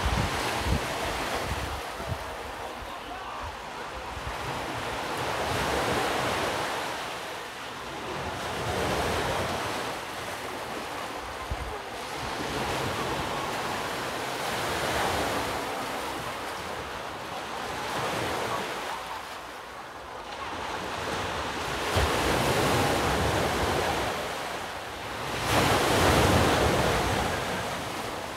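Sea surf washing in and out, swelling and fading every few seconds, with wind buffeting the microphone.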